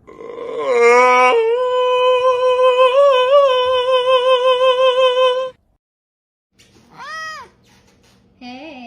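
A cat's long drawn-out yawning meow, gliding down in pitch and then held steady with a slight waver for about four seconds before cutting off. After a short pause come two brief rising-and-falling meows.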